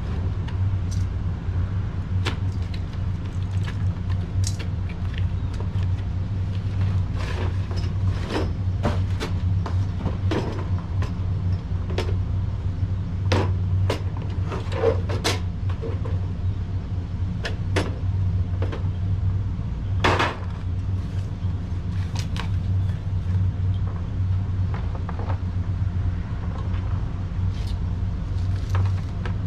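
A boxed 26-piece hand tool set unpacked: scattered clicks, knocks and light clatter as the case is slid from its cardboard sleeve, the red metal case is opened and its sockets and tools are handled, with one louder click about twenty seconds in. Under it all runs a steady low rumble.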